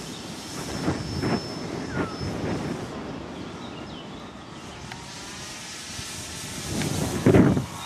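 Electric motor and propeller of a Multiplex FunCub RC plane flying overhead: a faint steady whine early on gives way to a thin note rising in pitch in the second half. A loud, low burst of noise comes near the end.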